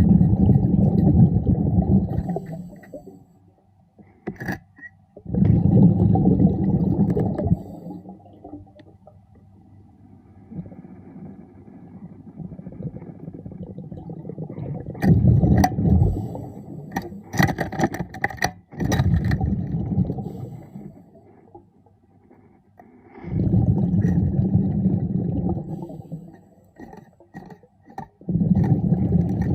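A diver breathing underwater: each exhalation releases a muffled, rumbling rush of bubbles lasting two to three seconds. About six such bursts come roughly every five seconds, with quieter inhalations between them. A handful of sharp clicks are heard near the middle.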